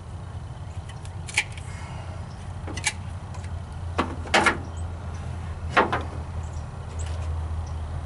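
Hand-tool work on a truck engine: a handful of sharp clicks and knocks spread over several seconds, over a steady low hum.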